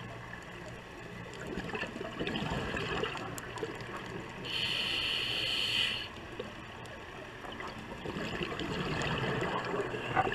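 Scuba diver breathing through a regulator, heard underwater: a gurgling rush of exhaled bubbles, a steady hiss of inhalation for over a second about four and a half seconds in, then another burst of exhaled bubbles from about eight seconds in.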